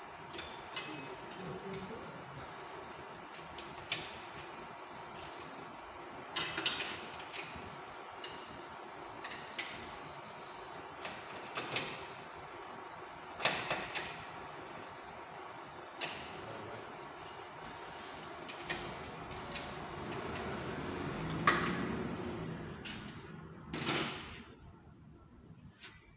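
Metal hand tools clinking and knocking in irregular clicks as work goes on under a car's underside and at a tool trolley, over a steady background hum. The sharpest knock comes near the end.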